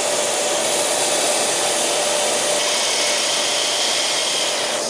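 Festool CT26 dust extractor running steadily, drawing air through its hose: an even rush of air with a steady whine on top.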